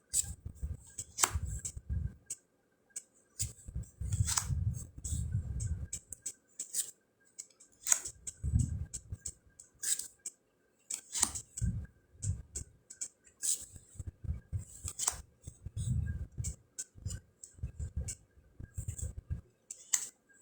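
Round fortune cards being handled and laid out by hand on a table: irregular sharp card snaps and clicks, with dull low bumps from handling in between.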